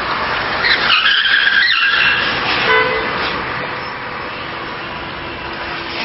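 Road traffic noise: a steady rush of passing vehicles, with a high-pitched squeal lasting about a second, starting just under a second in.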